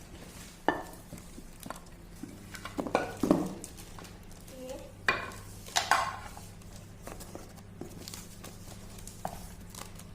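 Metal clanks and knocks of a pressure cooker's pot and lid being handled: several sharp strikes, some ringing briefly, over a steady low hum.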